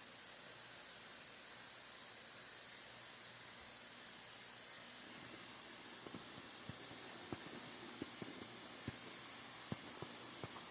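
High-voltage power lines hissing and crackling, a steady high hiss like flowing water: corona discharge from the lines in wet, snowy weather. From about halfway in, soft crunching footsteps in snow join it.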